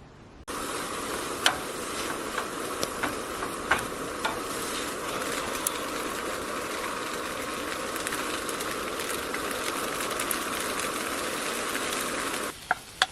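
Food frying in a pan: a steady sizzle with scattered sharp pops of spattering oil, starting suddenly and cutting off suddenly near the end.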